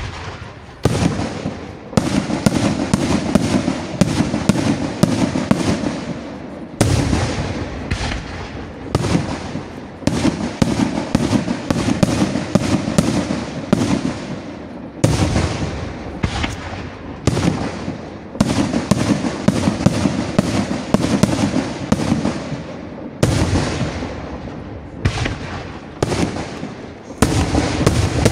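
Aerial firework shells bursting in rapid, overlapping succession: a dense, continuous barrage of bangs, with fresh loud volleys every few seconds.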